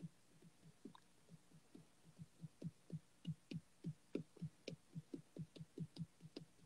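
Faint low thumps in a quick rhythm, about four a second, each dropping in pitch, with faint ticks above them.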